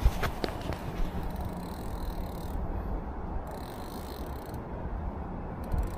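Fishing reel's mechanism clicking as the rod is handled, with a sharp knock right at the start, over a steady low rumble.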